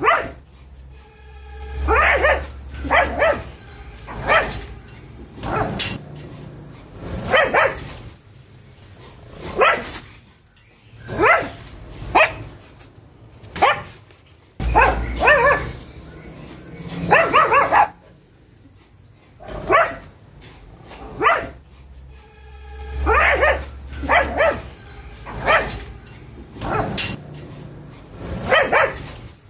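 Pug barking over and over: short single barks, roughly one a second with brief pauses, and a quicker run in the middle. A low rumble sits under a few of the barks.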